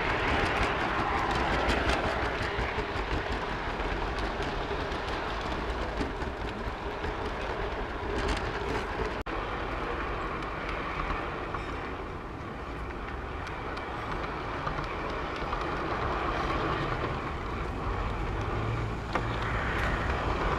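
Garden-scale model train rolling along outdoor track, heard from a camera riding on it: a steady running noise with small clicks from the wheels over the rail joints, broken off briefly about nine seconds in.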